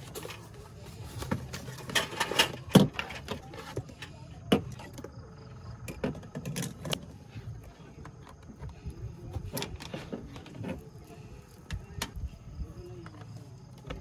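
Handling noises as camping lights are set up on a table: rustling and knocks, loudest about two to three seconds in, then scattered sharp clicks and light knocks as bulbs, a cable and a lantern are put down and connected.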